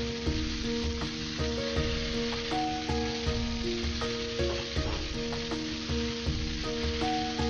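Chicken breast strips sizzling steadily as they fry in oil in a wok. Background music with a steady low beat and held notes plays over it.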